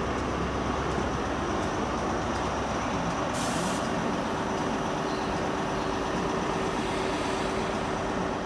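Class 43 HST power car's diesel engine running steadily, with a brief hiss of air about three and a half seconds in, after which a steady hum joins the engine sound.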